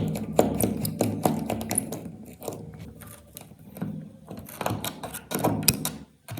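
Small hand tools clicking, tapping and scraping against phone parts during repair work, in an irregular run of sharp clicks.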